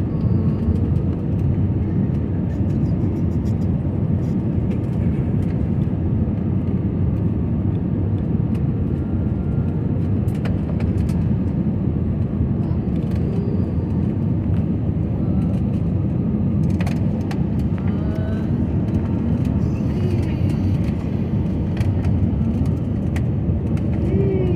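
Airliner cabin noise: the steady, low rumble of the jet engines and airflow heard from inside the passenger cabin, with a few faint clicks.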